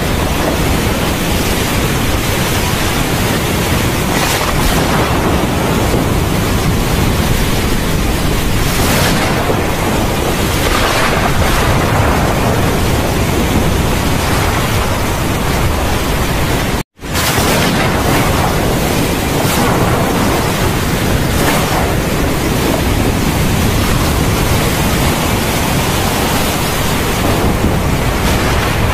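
Torrential rain: a loud, dense, steady hiss that swells now and then. It drops out to silence for an instant a little past halfway.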